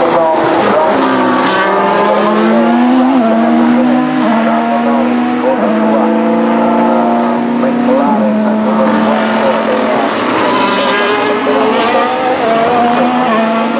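2025 Formula 1 cars' turbocharged V6 hybrid engines running on track, with several loud high engine notes overlapping. The pitch steps up and down several times.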